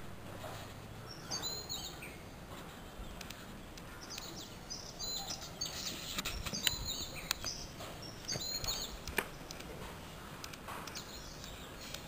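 Small birds chirping in the background: short, high, repeated calls every second or two over a steady outdoor hiss. A few sharp clicks are heard.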